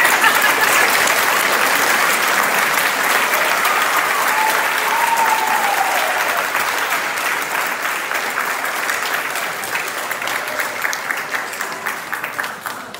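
Audience applauding in a large hall, starting loud at once and tapering off near the end.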